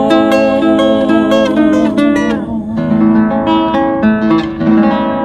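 Acoustic guitar music with strummed chords and plucked notes, the instrumental close of a sung song.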